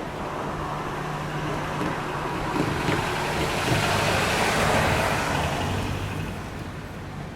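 A vehicle passing by: a steady low hum with a rising wash of noise that is loudest about four to five seconds in, then fades away.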